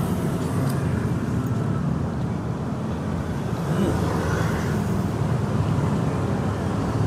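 Steady road traffic noise, passing cars running without a break.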